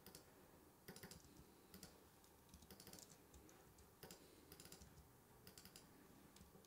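Faint computer keyboard typing: irregular runs of light keystrokes and clicks.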